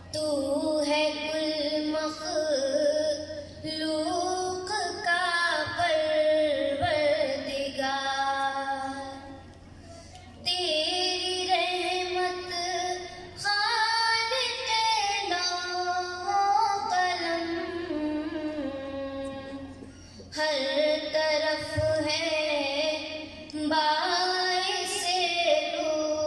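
A girl singing a naat solo and unaccompanied into a microphone, in long held, wavering phrases. She breaks off briefly twice between lines, about ten and twenty seconds in.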